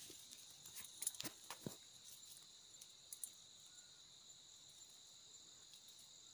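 Steady, faint, high-pitched chorus of insects, with a few sharp snaps and crackles of dry brush underfoot in the first couple of seconds and once more a little after three seconds.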